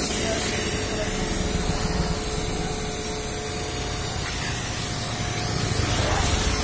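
Pressure washer lance jetting water against a car's rear bumper and wheel arch: a steady hiss of spray with a steady hum underneath.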